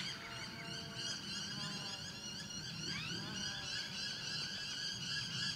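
Outdoor ambience of several birds calling, with many short chirps and whistles and a few longer held notes in the first couple of seconds, over a steady high background.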